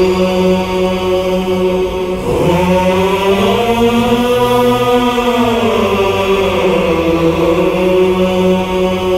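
Voices chanting in long held notes; the pitch glides up a couple of seconds in and sinks back down about two-thirds of the way through.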